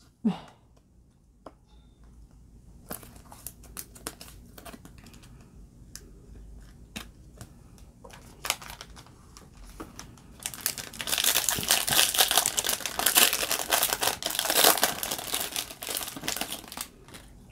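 Foil wrapper of a Topps baseball card pack crinkling and tearing as it is ripped open, loud and continuous for the last six seconds or so. Before that, light scattered clicks and taps of cards and a plastic top loader being handled.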